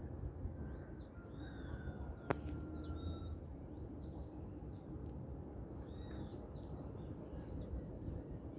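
Dawn chorus of several birds: short, high chirps and whistles that rise and fall, repeating throughout over a steady low background noise, with one sharp click a little over two seconds in.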